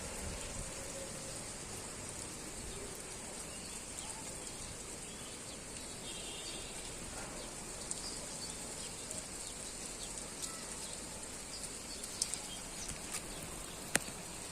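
Steady rain falling, an even hiss, with a few sharp taps near the end.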